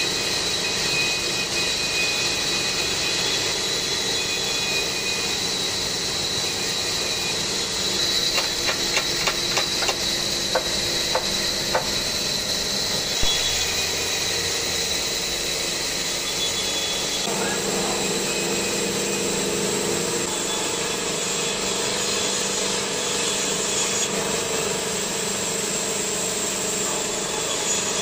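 Band saw running steadily with a thin high whine while wooden strips are fed through it. A run of sharp clicks and knocks comes about eight to twelve seconds in, then one louder thump.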